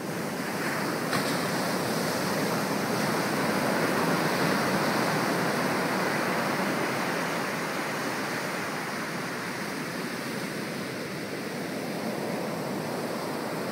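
Ocean surf breaking and washing up the beach: a steady rushing noise that swells over the first few seconds, eases off, and builds again near the end.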